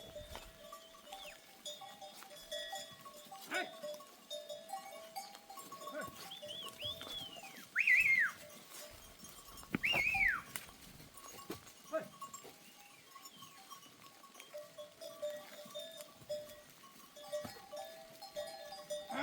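Goats bleating a few times, loudest about eight and ten seconds in, with the herd's bells clinking and ringing in between.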